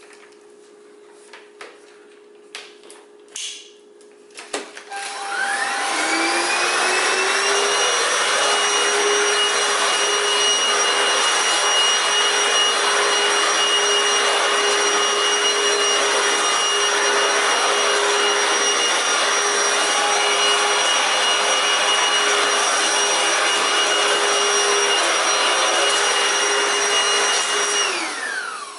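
Deik cordless stick vacuum cleaner: a few handling clicks, then its motor switches on about five seconds in and whines up to speed. It runs steadily with a high whine and rushing air while vacuuming carpet, and winds down at the very end.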